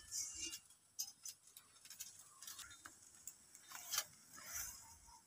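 Hot fried semolina gulab jamuns crackling faintly in sugar syrup, a few scattered soft ticks and short hisses as the balls draw the syrup in.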